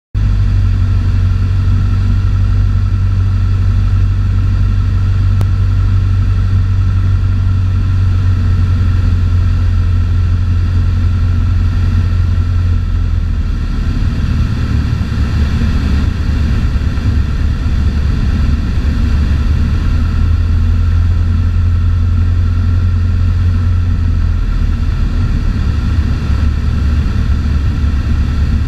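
Cessna 152's four-cylinder Lycoming O-235 engine and propeller droning steadily in flight, heard inside the cockpit. The drone changes slightly about halfway through and again near the end.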